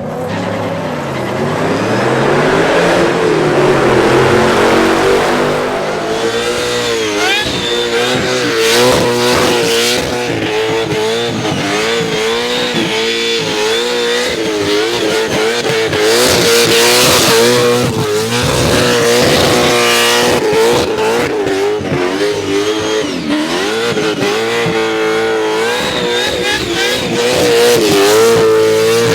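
Supercharged, injected 427 cubic-inch Chevrolet small-block V8 in a Holden VH Commodore doing a burnout. The engine revs up over the first few seconds and is then held at high revs, wavering up and down.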